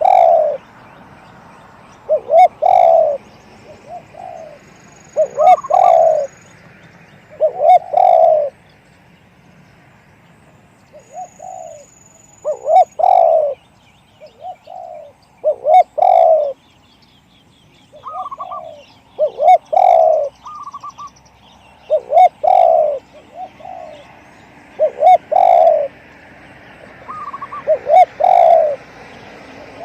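Spotted dove cooing: short phrases of low, rounded coos repeated about every two to three seconds. Faint thin high chirps from other birds come in now and then.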